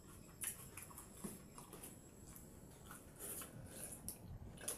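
Faint eating sounds from people eating watered rice (pakhala) by hand: chewing, lip smacks and small wet clicks scattered throughout, with a sharper click near the end.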